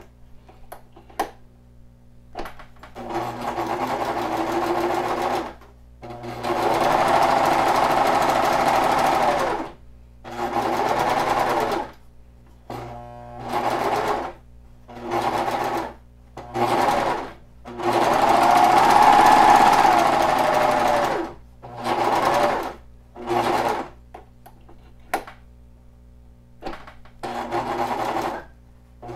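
Janome 1100D serger stitching and trimming the edge of flannel fabric, running in stop-start stretches of one to three seconds with short pauses between as the fabric is turned around a corner.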